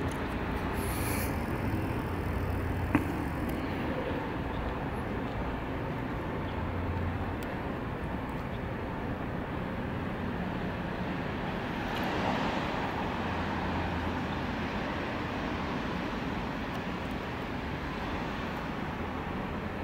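Steady urban night ambience: a hum of distant city traffic with a low drone under it, swelling a little about twelve seconds in. A single sharp click about three seconds in.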